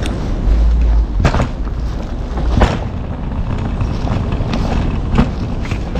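A hard-shell suitcase being wheeled and handled: a steady low rumble with a few sharp knocks as it bumps along.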